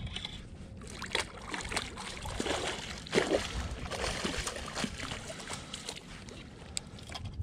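Hooked walleye thrashing and splashing at the water's surface beside the boat, water sloshing as it is brought to the landing net.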